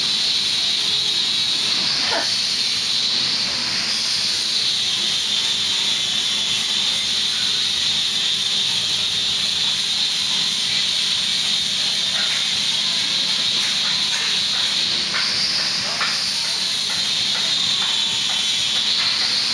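Steady hiss of steam from a homemade espresso machine's copper boiler, its pitch slowly wavering up and down.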